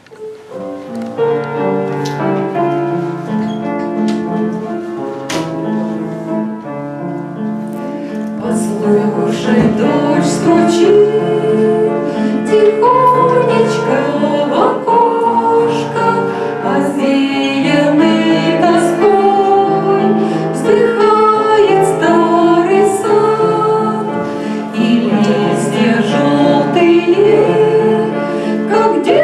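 Music intro: sustained chords with a melody line over them, growing louder over the first ten seconds or so.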